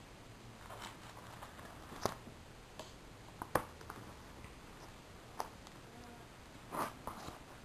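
Faint handling of a card binder being opened: a few sharp clicks and taps, then a brief crinkle of the plastic card-sleeve pages near the end.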